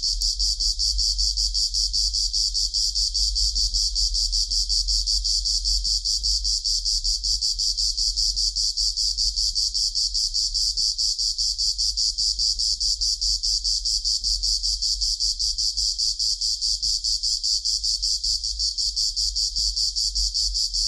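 Cicadas buzzing in a steady, rapidly pulsing high-pitched chorus, high-pass filtered so that almost nothing lies below it but a faint low hum.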